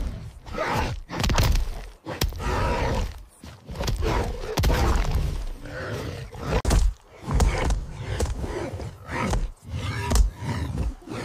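Animal fight sounds: repeated growls and grunts with thumps and scuffs, coming in loud bursts about a second apart. A sharp thump near the end is the loudest.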